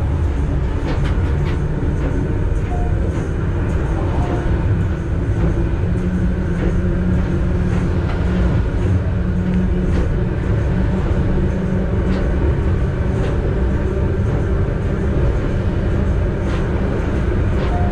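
Vintage electric suburban train running along the track, heard from inside the driver's cab: a steady low rumble of wheels on rails and running gear. A low hum stands out for several seconds midway, and there are scattered light clicks.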